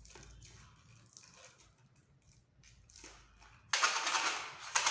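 Homemade rain stick, a cardboard tube with mustard seeds inside, being played. A faint trickle of seeds at first, then a loud rattling hiss of seeds rushing through the tube near the end.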